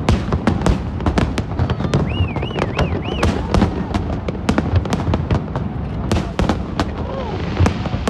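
Aerial fireworks display: shells bursting in a rapid run of bangs and crackles, several a second. A wavering whistle rises and falls four times about two seconds in.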